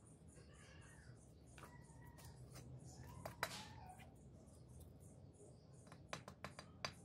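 Mostly quiet, with a faint animal call in the middle and a quick run of sharp taps near the end as a trowel knocks at a PVC pipe set in the brickwork.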